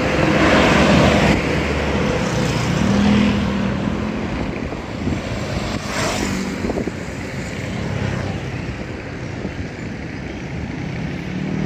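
Road traffic passing close by: a loaded truck and motorcycles going past, with the loudest swell of engine and tyre noise about a second in and another motorcycle passing with a brief rise in engine note around six seconds.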